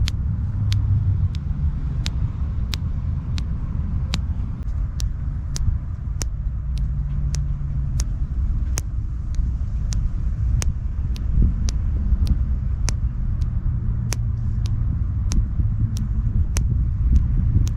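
A thumb joint popping over and over: sharp little clicks about twice a second, fairly regular, over a steady low rumble.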